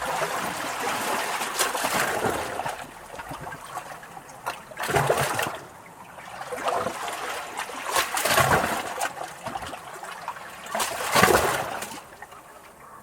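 Small, calm sea waves lapping against rocks close up, with splashes and trickling water between them. Three larger waves wash in about 5, 8 and 11 seconds in, and the water quietens near the end.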